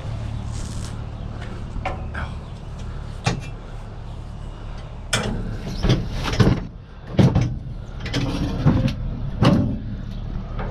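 A vehicle engine running steadily, with a run of sharp knocks and bangs through the second half.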